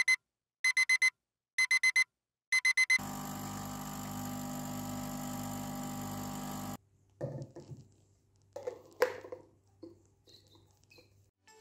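Electronic alarm clock beeping in bursts of four quick high beeps, about one burst a second, its wake-up alarm going off. Then a steady hum runs for a few seconds and cuts off suddenly, followed by faint knocks and rustling.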